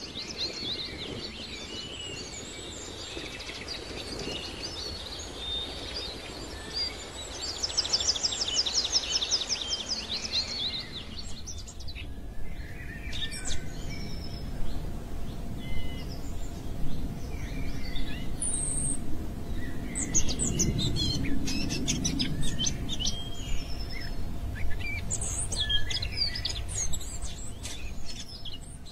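Wild birds singing and calling: fast, evenly repeated high trills for about the first ten seconds, then an abrupt change to scattered short chirps over a low rumble.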